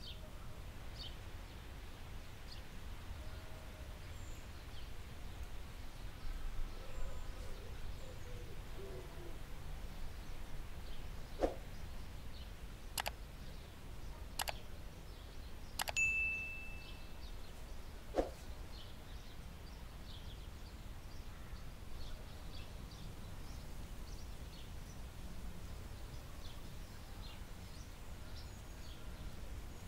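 Outdoor ambience of faint, scattered bird chirps over a steady low rumble. A few sharp clicks come in the middle, with a brief high tone about halfway through.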